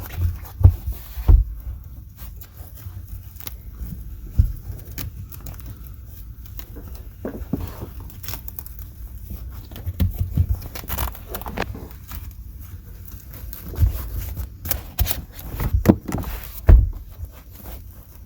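Handling noise from a fabric seat cover being worked onto a truck seat's headrest: rustling and tugging with irregular dull bumps and knocks, a few of them sharp.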